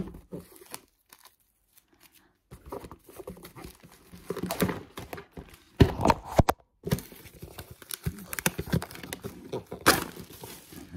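Handling noises from a cardboard card box in its plastic wrap: crinkling and tearing, with sharp knocks as the box and the phone are moved about. The noise stops for about a second and a half near the start.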